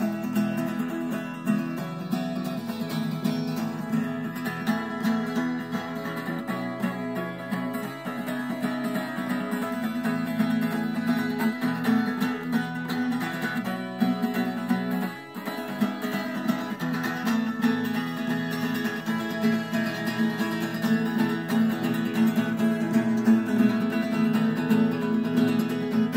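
Solo acoustic guitar played with continuous, rapidly plucked notes over ringing low bass notes, briefly dropping in loudness about fifteen seconds in.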